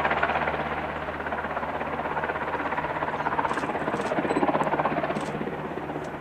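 Helicopter in flight: the rotor's rapid, steady beating over the engine's hum, fading a little near the end as it moves away.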